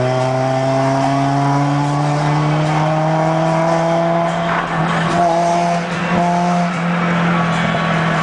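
Toyota AE86 Sprinter Trueno engine and exhaust pulling steadily in one gear, its pitch climbing slowly as the car gathers speed. The exhaust is really loud, and the owner plans to change the muffler.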